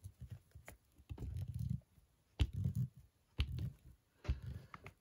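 Glue being spread on a paper piece laid on a glue book: about four short rubbing strokes across the paper, most starting with a light tap.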